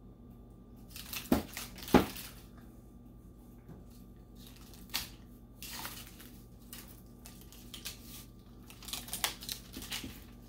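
Shrink wrap and sublimation paper being cut, torn and crinkled off a freshly sublimated stainless steel bowl, in irregular rustling bursts with two sharp loud strokes about two seconds in.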